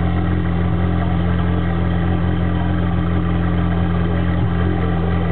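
Ferrari F430 Challenge race car's 4.3-litre V8 idling steadily, heard close up at the exhaust outlets.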